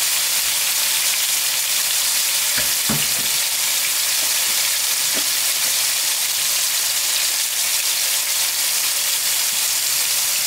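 Beef frying in butter in a pan: a steady sizzle, with a few brief soft knocks about three and five seconds in.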